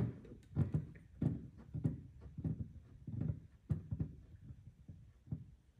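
Soft handling noises from an outside micrometer being worked against a telescoping bore gauge: faint low knocks and rubs about every half second or so, with a few light clicks.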